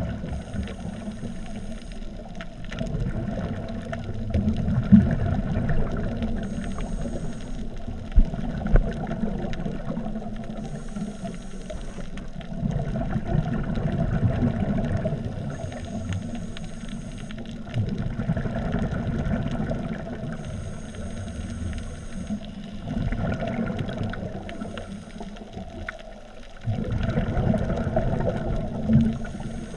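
Scuba diver breathing through a regulator, heard underwater: a short high hiss on each inhale about every four to five seconds, and between them the low bubbling rumble of exhaled air.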